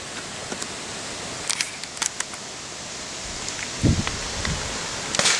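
Steady outdoor hiss on a camera microphone with camera handling noise: a few faint clicks, a low thump about four seconds in, and a brief rush of hiss near the end.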